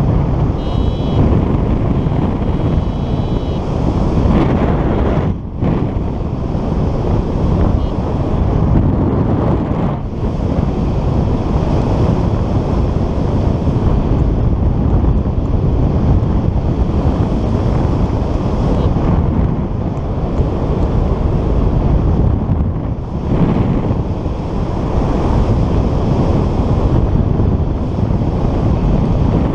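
Wind buffeting the microphone of a camera on a flying paraglider: a loud, gusting rumble that dips briefly twice. A few faint high beeps sound about one to three seconds in.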